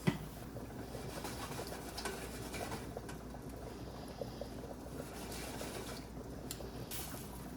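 Pasta pot boiling and cream sauce simmering on the stovetop: a faint, steady bubbling with scattered small pops and ticks, and a sharp click right at the start.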